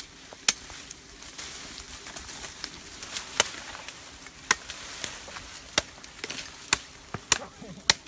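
A cleaver chopping into a green tree branch: sharp blade strikes, about ten of them at an uneven pace of roughly one a second.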